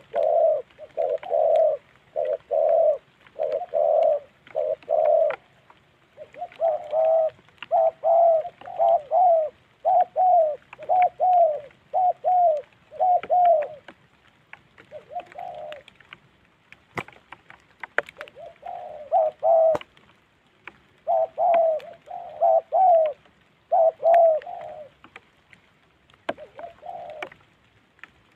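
Spotted doves cooing in quick runs of short, low coos, about two a second, broken by pauses, as two males face off in a territorial contest. A few sharp clicks come in the second half.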